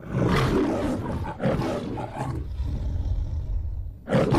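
Lion roaring as in the MGM studio logo: a long roar at the start, two shorter roars after it, a low rumbling breath, then another roar near the end.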